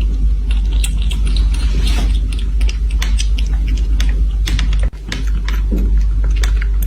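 Kitten drinking milk: rapid, irregular wet clicking mouth sounds, close to the microphone over a steady low rumble, briefly cut off about five seconds in.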